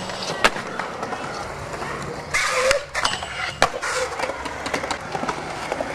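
Skateboard wheels rolling on concrete, with several sharp clacks of the deck popping and landing, and a louder scraping stretch partway through.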